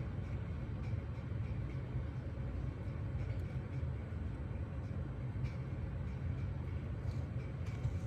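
Steady low background hum with no distinct mechanical event.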